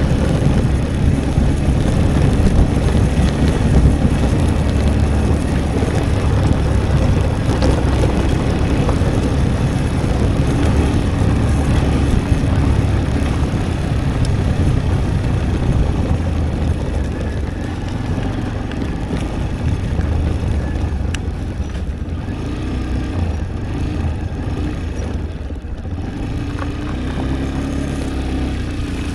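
Wind rushing over the microphone of a moving Italika V200 motorcycle, with the engine running underneath. The noise is steady and eases slightly in the last third.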